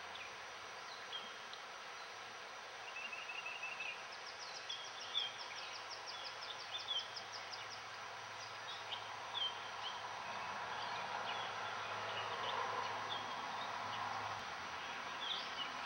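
Steady rush of flowing river water with small birds chirping over it, including a fast trill of repeated high notes about four seconds in.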